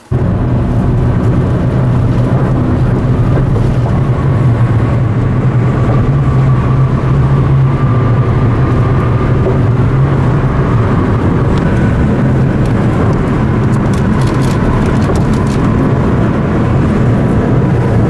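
Steady road noise of a car driving at highway speed, heard from inside the cabin: a loud, even low drone with rushing noise over it.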